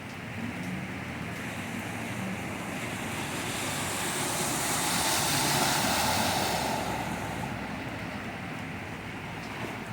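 A vehicle driving past through standing floodwater over steady rain: the rush of spray swells to a peak in the middle and fades away.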